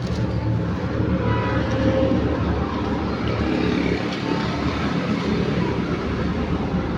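A steady mechanical rumble with a low hum, even throughout.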